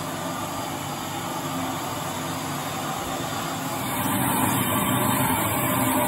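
700 W canister vacuum cleaner running at its higher power setting, a steady motor and airflow noise; about four seconds in the sound changes and gets a little louder.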